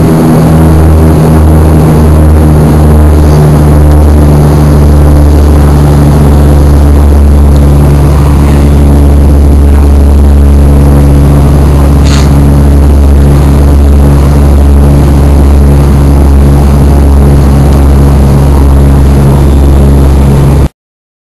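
Cabin drone of an ATR 42-300's Pratt & Whitney PW120 turboprop engine and propeller in climb: a loud, steady, low multi-toned hum with a rushing noise above it. It cuts off suddenly near the end.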